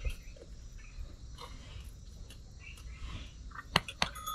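A cow being hand-milked: soft, irregular squirts of milk into a nearly full steel pail of froth. Two sharp clicks near the end.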